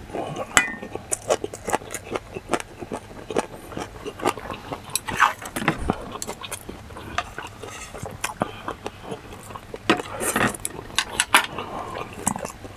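Someone eating mixed rice: chewing and lip smacking with scattered short clinks and scrapes of a wooden spoon and chopsticks on a stainless steel bowl.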